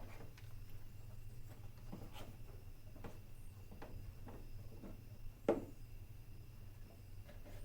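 Scattered light clicks and knocks of hand tools and parts being handled under a car's bonnet, with one louder knock about five and a half seconds in, over a steady low hum.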